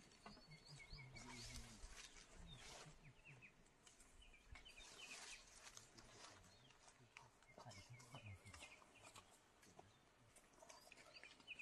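Near silence: faint outdoor ambience with small birds chirping now and then, mostly near the start and again near the end.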